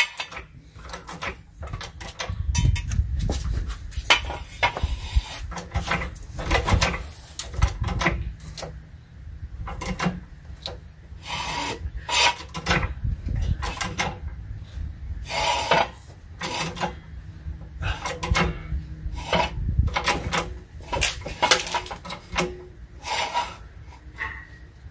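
Irregular metal clanks, clicks and scrapes as a floor jack is worked and a steel jack stand is set and adjusted under a car.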